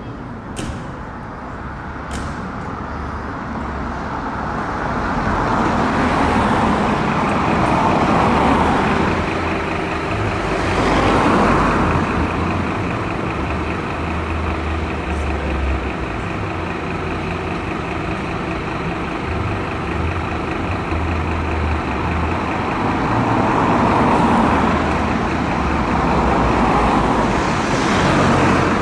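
Road traffic passing several times, each pass rising and fading, over a steady low diesel idle from a Scania P270 fire engine. Two sharp clicks in the first couple of seconds.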